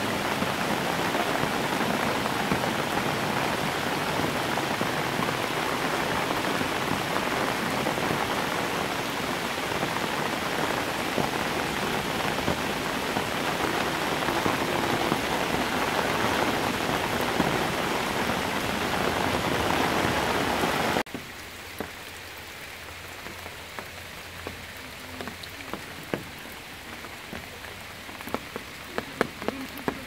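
Heavy summer monsoon rain pouring steadily onto leafy vines. About two-thirds of the way through it cuts suddenly to a quieter rain patter with scattered single drops.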